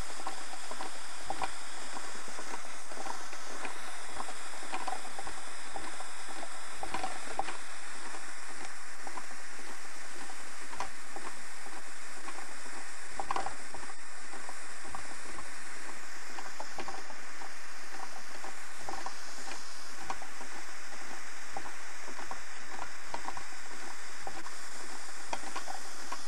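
Homemade tin-can Stirling engine running slowly on the heat of a torch: its crank, rods and diaphragm give irregular clicks and rattles over the steady hiss of the torch flame.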